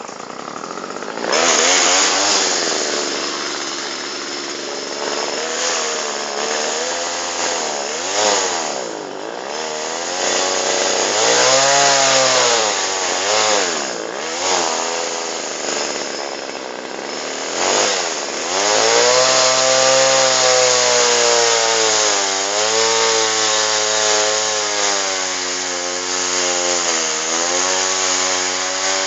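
McCulloch (Mac) two-stroke chainsaw cutting into a tree, throttling up about a second in and then running hard, its engine pitch sagging and recovering again and again as the chain loads up in the wood and eases off.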